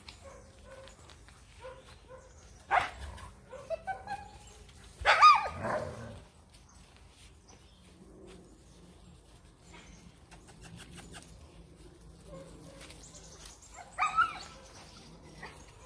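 Alaskan Malamute puppies yipping and whining: a few short high yips around three to four seconds in, a louder drawn-out yelp about five seconds in, and another yip near the end.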